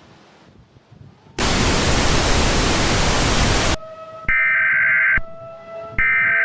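Faint hiss, then a loud burst of TV static lasting about two seconds, followed by the harsh buzzing data bursts of an Emergency Alert System (SAME) header: two bursts about a second long with a short gap between. Faint held tones, one slowly rising in pitch, run underneath the bursts.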